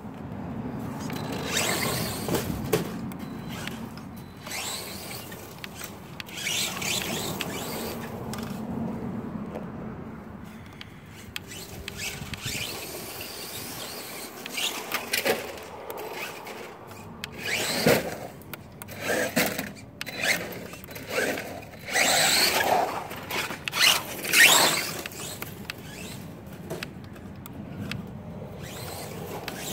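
Redcat Racing Caldera radio-controlled short course truck driving on a grass lawn, its motor whining in repeated bursts of throttle as it speeds up and slows down. The loudest bursts come between about 17 and 25 seconds in.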